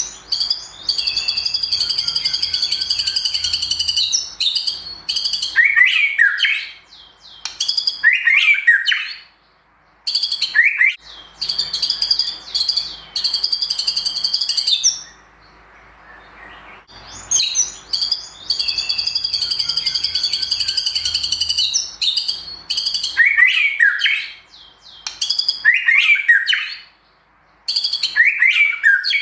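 White-rumped shama (murai batu) singing a varied song with mimicked phrases: long runs of fast, high trilling broken by short, loud sweeping whistles, with brief pauses between phrases.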